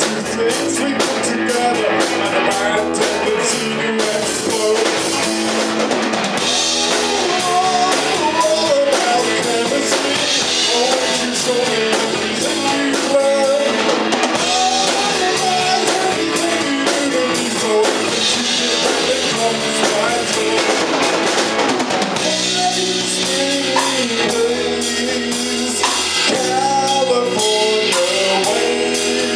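Live rock band playing: electric guitar, electric bass and a Gretsch drum kit, with a wavering melodic lead line over the band. The music moves into a new section about 22 seconds in.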